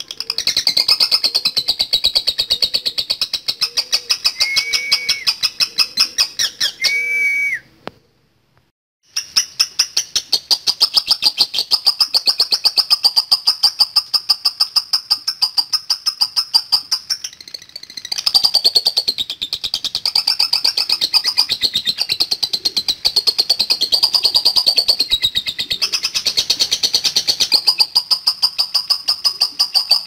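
Fischer's lovebird chattering in a long, fast, high-pitched pulsing trill (the 'ngekek' sung by a male lovebird). It cuts out for about a second some eight seconds in, then carries on unbroken.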